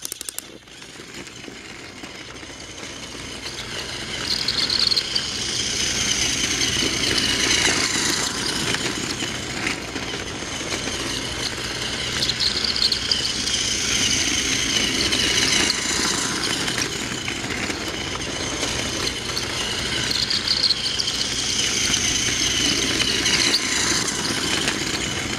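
Battery-operated Thomas the Tank Engine toy train's small electric motor whirring as the train runs on plastic track, with its wheels rattling. It builds up over the first few seconds, then swells and eases several times as the train comes past and goes away.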